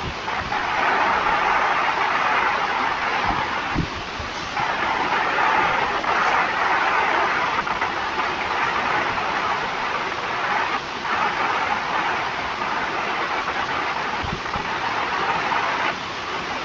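Steady rushing background noise with no speech, swelling and easing slightly in level, with a few faint low knocks.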